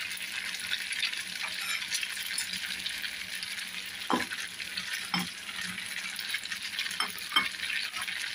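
Egg and tofu fritters frying in bubbling oil: a steady sizzling crackle, with a few louder pops of spitting oil in the second half.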